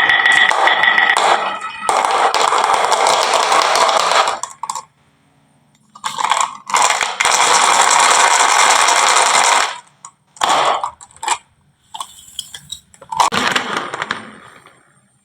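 Marbles rolling and clattering down a wooden marble run track: two long stretches of steady rattling, then a few short clacking bursts near the end.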